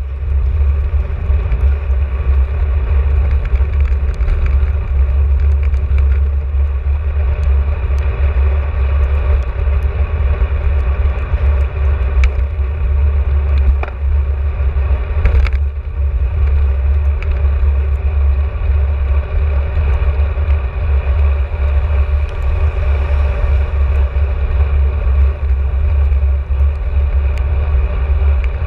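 Steady wind buffeting and road noise on the microphone of a camera riding on a moving bicycle, heavy in the low end, with a few short knocks from jolts.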